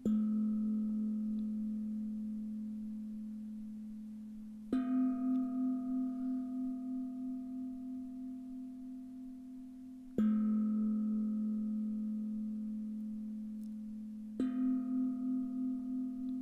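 Two singing bowls of different pitch struck in turn, four strikes about five seconds apart, each ringing on with a slow wobble as it fades. The strikes mark the rhythm of the breathing and movements.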